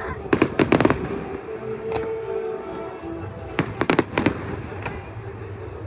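Fireworks going off in two quick volleys of sharp bangs, about a second in and again near four seconds in, with a few single reports between, over music.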